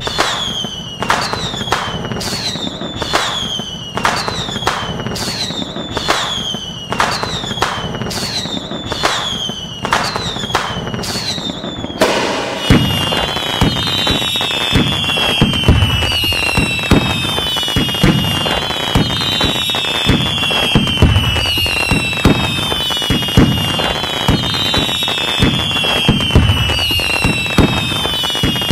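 Fireworks: whistling rockets go off one after another, a new one about every two-thirds of a second, each whistle falling in pitch. About halfway through, the whistles overlap thickly and are joined by repeated bangs and crackling from the bursts.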